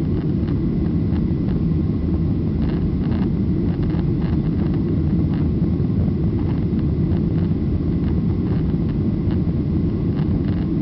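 Boeing 737-800 cabin noise heard from a window seat: its CFM56-7B jet engines and the airflow make a steady low rumble during the climb-out, with a faint steady whine above it.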